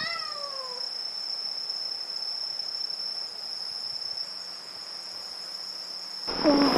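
Grass insects chirping in one steady high note throughout, with a cat's short meow falling in pitch right at the start. Near the end, louder cat cries begin.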